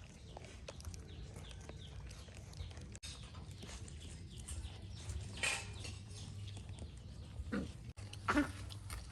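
Puppies giving short whimpering cries twice near the end, over small clicks and rustling, with a brief scrape about halfway.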